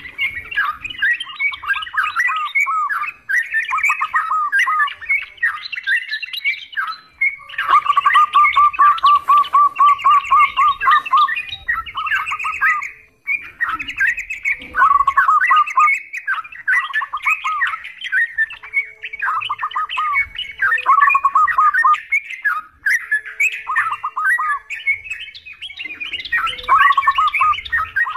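Yellow-vented bulbuls (trucukan) chattering in a dense, overlapping stream of bubbly phrases, with a fast, even trill about eight seconds in.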